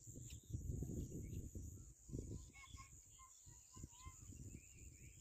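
Outdoor ambience: a steady high insect drone with short bird chirps. Low rumbling on the microphone is loudest in the first two seconds, with a thump a little after.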